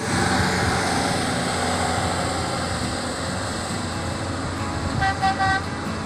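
Road traffic running steadily on a hill road, with a vehicle horn sounding short toots in quick succession about five seconds in.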